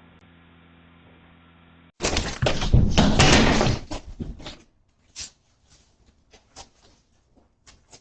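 A low steady hum, then from about two seconds in a burst of loud clattering and rattling lasting a couple of seconds, trailing off into scattered clicks and knocks.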